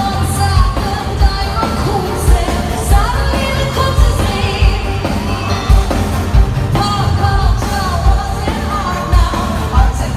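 Live pop performance: a female singer singing into a microphone over a loud amplified dance-pop backing track with a steady heavy beat, picked up from the arena audience.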